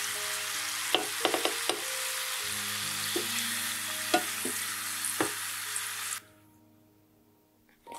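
Fritter dough balls sizzling steadily in deep, hot vegetable oil in a steel pot, with a handful of sharp clicks as utensils knock against the pot while the fritters are turned and lifted out. The sizzling cuts off suddenly about six seconds in, and soft background music plays underneath.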